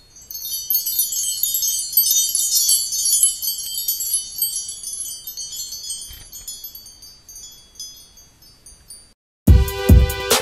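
High tinkling chimes: a dense shower of quick bell-like notes that swells within the first second and slowly fades out over about eight seconds. About a second before the end, music with a heavy beat starts abruptly.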